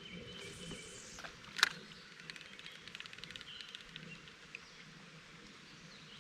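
Faint bird calls over a quiet outdoor background, with one sharp knock about a second and a half in.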